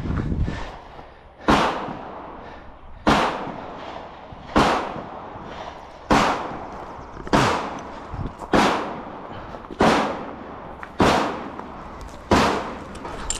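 Gunshots fired one at a time at a steady pace, about nine shots roughly 1.3 seconds apart, each followed by a trailing echo.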